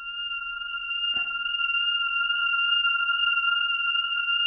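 Omnisphere software synth holding a single high-pitched note, swelling in over the first second or so and then steady. A faint knock sounds about a second in.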